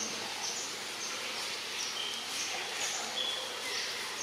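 Outdoor woodland ambience: a steady hiss with high chirps repeating every half second or so, and two short whistled bird notes about two and three seconds in.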